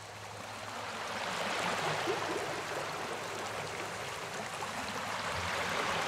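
Waterfall: a steady rushing hiss of falling and splashing water, swelling up over the first second or so and then holding even.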